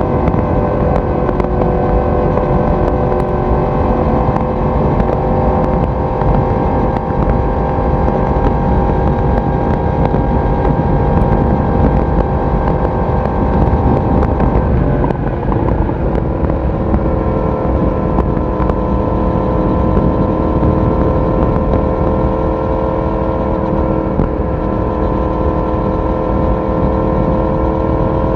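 Yamaha YZF-R1's crossplane inline-four running steadily at cruising speed, heard through its exhaust over the noise of the ride. About halfway through the engine note drops, then climbs slowly and evenly as the bike pulls on.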